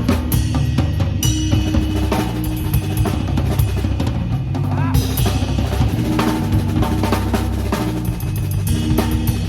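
A small band playing jazz live, the drum kit busy with cymbal, snare and bass drum strokes over a bass line and held chords.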